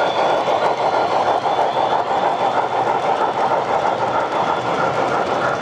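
O-gauge model trains running on the layout's track: a steady, unbroken rolling clatter of wheels on rails with a faint motor whine.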